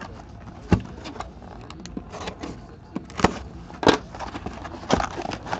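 Hands handling a cardboard hobby box of hockey cards and its foil-wrapped packs: soft rustling of cardboard flaps, with sharp taps and knocks about a second in, at about three and four seconds, and near the end.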